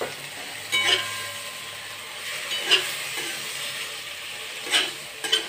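A spatula scrapes and stirs aubergine and ground masala frying in a kadhai, over a steady faint sizzle. There are about four scrapes, the first three roughly two seconds apart and the last close after the third.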